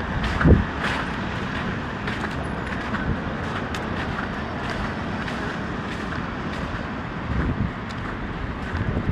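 Downtown street ambience: steady traffic noise, with a brief low thump about half a second in.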